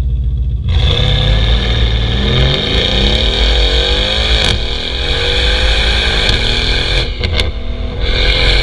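Mercedes-AMG C63 S (W205) twin-turbo V8 with an iPE titanium exhaust, heard right at the tailpipes, pulling away hard under full throttle. The engine note comes in loud under a second in and rises steadily in pitch, breaking at upshifts about four and a half and about seven seconds in before climbing again.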